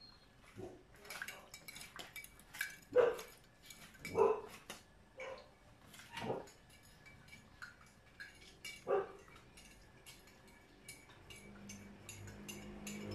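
A dog eating from a plastic food bowl: a string of short knocks and clicks as the bowl and food are nosed about, turning into a run of quick ticks near the end.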